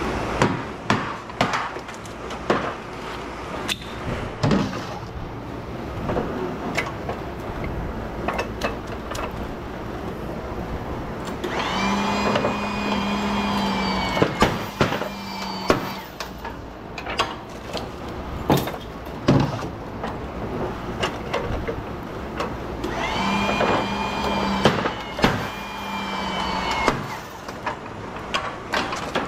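Steel transformer cores from HID light ballasts being broken apart for their copper: repeated sharp cracks and bangs as the welds break, loud throughout. Twice a powered tool's steady pitched whine rises in and runs for about four seconds.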